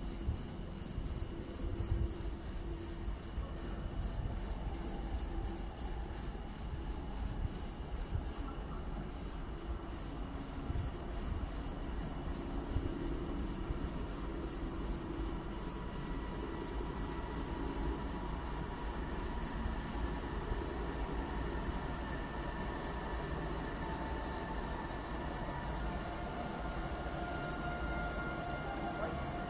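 A cricket chirping steadily and evenly, about three high-pitched chirps a second, over a low rumble.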